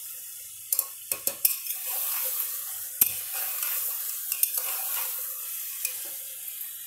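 Mutton pieces sizzling in hot oil with onions and ginger-garlic paste in an open pressure cooker, frying (bhuna) to cook out the rawness, while a metal spatula stirs them. The spatula clinks sharply against the pot several times about a second in, once hard at about three seconds, and again a little later.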